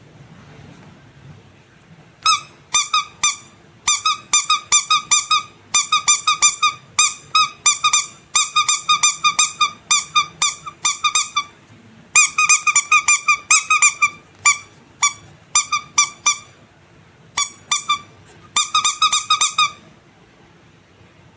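A rubber squeaky animal toy is squeezed over and over in quick runs of short, high, pitched squeaks. The squeaking starts about two seconds in, pauses briefly a couple of times, and stops shortly before the end.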